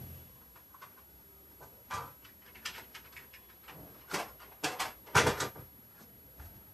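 Scattered knocks and clicks of small objects being handled and set down while things are fetched, with the loudest cluster of knocks about five seconds in.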